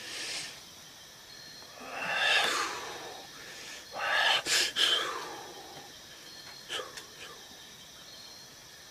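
A person blowing out breath forcefully twice, long breathy whooshes about a second each, with a few sharp clicks around them.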